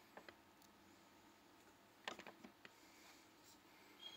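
Near silence with a few faint clicks, a small cluster about two seconds in, as a half-inch wrench turns a steering wheel lock plate removal tool.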